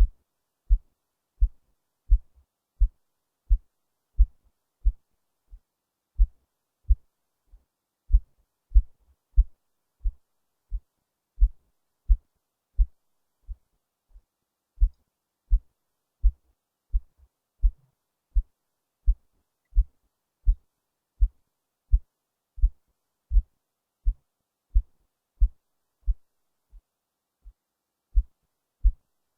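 A person's heartbeat, picked up by a microphone pressed against the chest under the left breast. Steady low beats come about one every 0.7 seconds, roughly 85 a minute, a few weaker than the rest.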